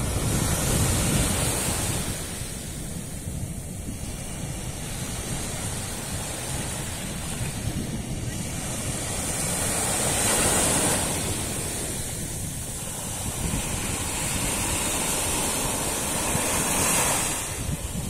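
Small sea waves breaking and washing up the shore, the hiss of the surf swelling as a wave breaks about ten seconds in and again near the end, with wind buffeting the microphone.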